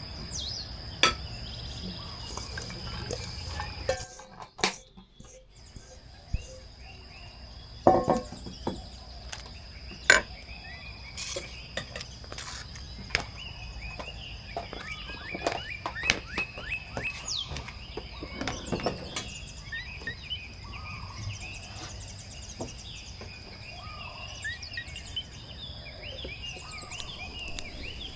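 Scattered clinks and knocks of camp cookware and utensils over a steady high-pitched insect drone, with a few bird chirps in the second half. The background briefly drops out about four seconds in.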